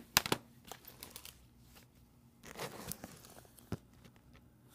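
Handling noises: a sharp double knock just after the start, then scattered light clicks, a stretch of plastic crinkling about two and a half seconds in, and one more click shortly after.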